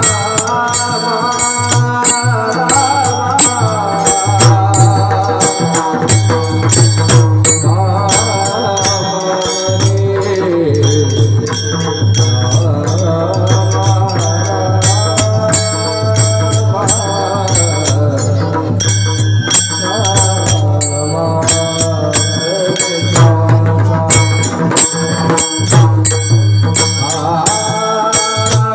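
Devotional music led by a mridang (two-headed barrel drum) played in rapid strokes, with small hand cymbals ringing and a voice singing in gliding phrases over a steady low drone.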